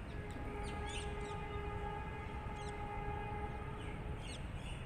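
A horn sounding one steady, unwavering note for about four seconds, then stopping, with small birds chirping over a low background rumble.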